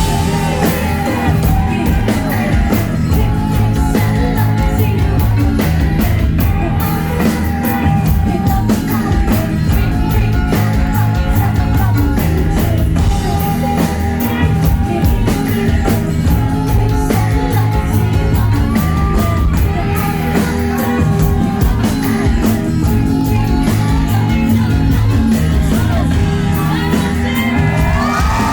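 Loud live band music with a steady beat and a woman singing, with yells from the audience.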